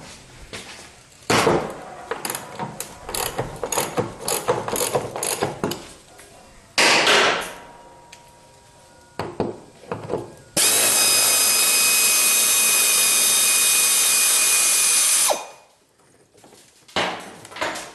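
A 1/2-inch drive ratchet with a 5/8-inch socket clicking in quick runs as it works a rusty rear body mount bolt on a 1974 Corvette. Past the middle comes a steady, loud whirring noise that lasts about five seconds and then stops abruptly.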